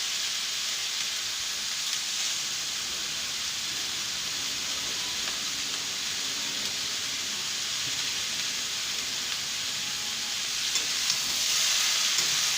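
Food frying in a pan: a steady sizzle that gets louder near the end.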